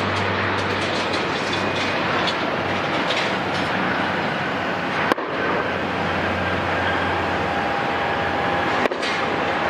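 Jet airliner engines running: a steady broad roar with faint high steady whines, broken by two sudden clicks about five and nine seconds in.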